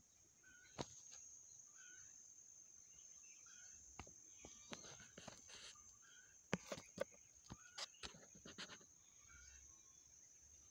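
Faint outdoor ambience: short, high chirps about once a second over a steady high-pitched hiss, with a run of sharp clicks in the middle.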